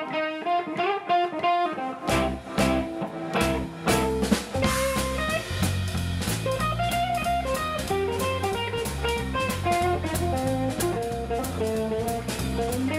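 Live electric blues trio playing an instrumental jam: electric guitar, electric bass and drum kit. The guitar plays single-note lead lines alone for about two seconds, then the bass and drums come back in and the full band plays on with a steady beat.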